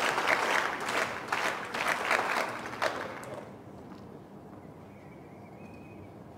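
Scattered applause from a small crowd of spectators, dying away about three seconds in to a quiet, even background.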